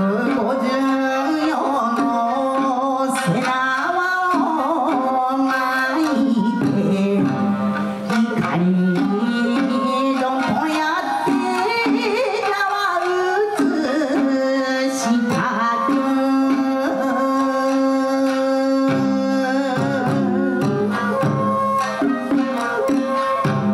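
Shamisen ensemble playing, many plucked strings sounding together, with a solo voice singing over them.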